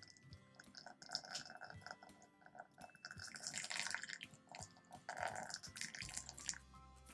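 Hot water poured in a thin stream from a gooseneck kettle into a glass cup over a tea bag, splashing and trickling, loudest a little past the middle.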